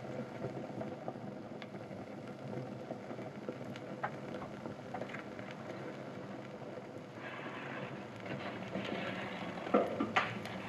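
A pile of sneakers burning in an open fire: a low steady rush of flames with scattered crackles. The crackling gets brighter from about seven seconds in, with a few sharp pops near the end.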